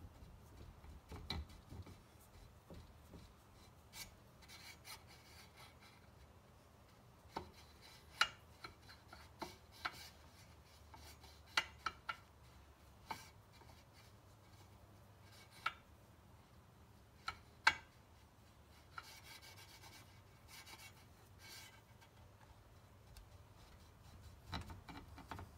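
Steel swing-arm spindle being pushed and twisted into a tight bush of a Norton Commando swing arm: irregular sharp metallic clicks and short stretches of metal-on-metal scraping and rubbing.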